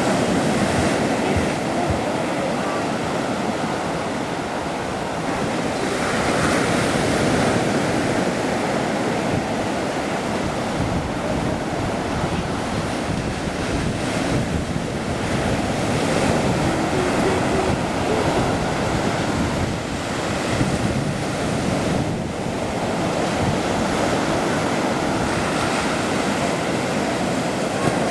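Black Sea surf washing onto the shore in a continuous roar that swells every several seconds as waves come in, with wind buffeting the microphone.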